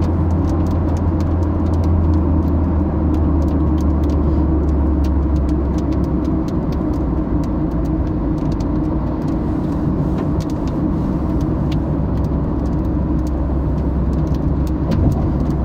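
Steady road and engine noise inside the cabin of a moving Mitsubishi sedan on a highway. A low drone eases about six seconds in, and faint scattered ticks sit over the hum.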